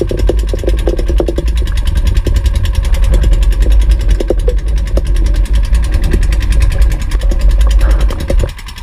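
Outrigger boat's engine running steadily, with a heavy low rumble; the rumble drops away sharply near the end.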